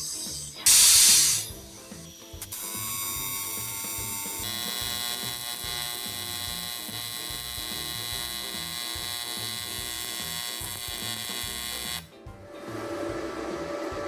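AC TIG welding arc on aluminium, a steady buzz with many even overtones that starts about two and a half seconds in, shifts at about four and a half seconds and cuts off suddenly near the end. It is preceded by two short bursts of hiss.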